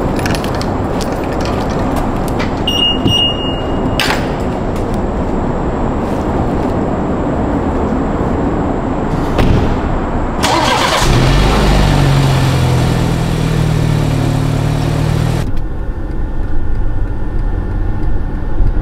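A BMW SUV's engine starting about ten seconds in and running with a steady low hum for several seconds, after a stretch of dense car noise with a click near four seconds. Near the end the sound changes to the quieter noise of the car's cabin under way.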